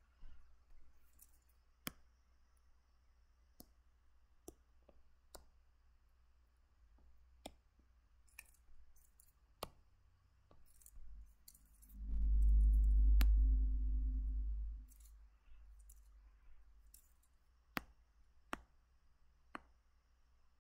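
Scattered sharp clicks, about a dozen spread unevenly, from drawing on the computer with a pen or mouse. About twelve seconds in, a loud low rumble lasts roughly three seconds.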